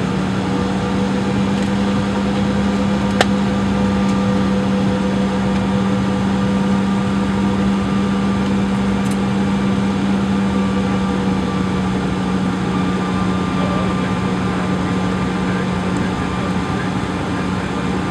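Steady cabin noise inside a Bombardier CRJ700 taxiing: its rear-mounted turbofans at idle and the cabin air-conditioning, with a strong low hum under it. A single brief click about three seconds in.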